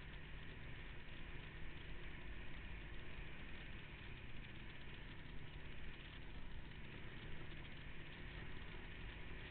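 ATV engine running steadily, with no revving or pauses.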